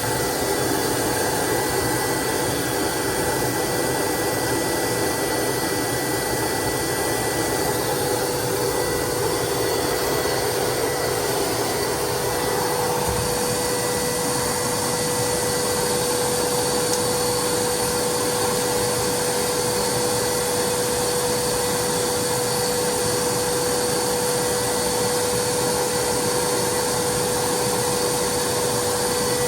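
EGO Power+ cordless wet/dry vac running steadily: a constant hiss of rushing air with a steady motor whine. The lower part of the hiss shifts slightly about thirteen seconds in.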